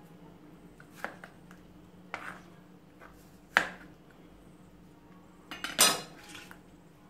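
Kitchen knife chopping peeled cucumber on a plastic cutting board: single sharp knocks about a second apart, the loudest about three and a half seconds in, then a quick cluster of knocks and clatter near six seconds.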